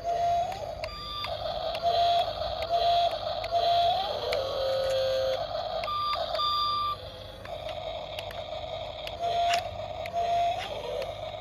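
Remote-control model construction machines at work: small electric motors and gears whining, some rising in pitch as they speed up, with short repeated electronic beeps and scattered clicks.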